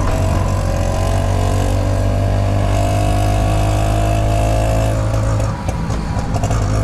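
Auto rickshaw engine heard from inside the open cabin, pulling along the road with its note rising over the first few seconds and then holding steady. The engine note drops briefly about five and a half seconds in, then picks up again.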